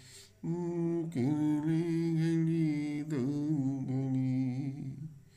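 A voice sings long, wavering held notes without clear words, in the melody of a Hindi film song. It starts about half a second in and slides down in pitch briefly twice.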